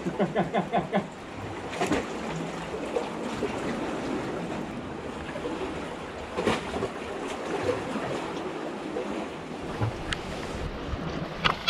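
Sea surf washing with wind on the microphone, a steady rushing noise, with a few sharp clicks of something being handled.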